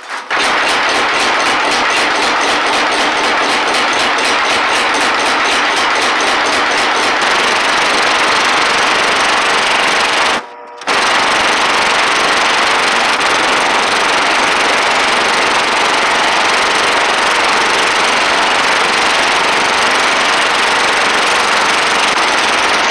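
Homemade belt-driven power hammer, a sledgehammer head on a spring-loaded arm, pounding red-hot rebar on a railroad-rail anvil in a fast, continuous run of blows, drawing it out into square bar stock. There is a brief gap about ten seconds in, then the hammering carries on.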